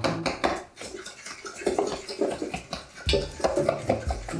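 Wet kitchen sounds of hand-mixing banana-bread batter: quick clicks and wet, slimy squelches of ingredients worked in a stainless steel mixing bowl, with heavier knocks against the bowl about three seconds in.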